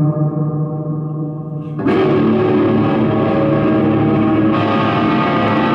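Live noise music: a held drone with many stacked overtones, then a sudden louder, denser and noisier wall of sound that comes in about two seconds in and keeps going.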